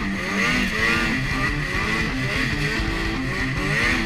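Snowmobile's two-stroke engine revving while riding, its pitch rising and falling repeatedly as the throttle is worked, with a guitar music track underneath.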